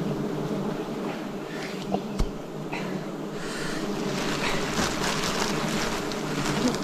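Wild bees buzzing steadily in a dense, continuous hum, with one sharp knock about two seconds in.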